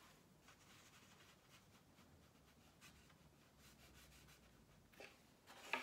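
Near silence, with faint soft rubbing of a watercolour brush on paper and a small tap about five seconds in.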